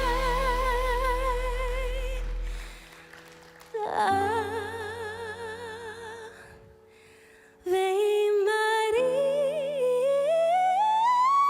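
A singer holds long wordless notes with vibrato over soft instrumental accompaniment. The voice falls away briefly about three seconds in and again just before eight seconds, then comes back on a note that climbs in pitch near the end.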